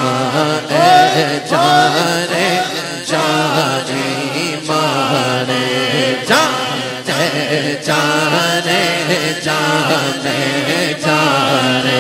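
A man chanting a naat, a devotional song, in long winding melodic lines over a steady low drone.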